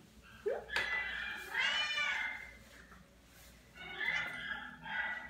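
A cat meowing: a long, high call that rises and falls in pitch about a second in, and a shorter one about four seconds in.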